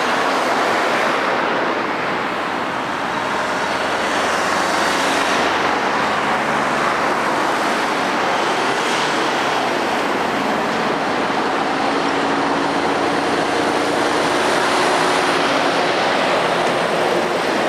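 Road traffic passing close by: cars and a van going past, then heavy lorries, a steady mix of tyre noise and engines.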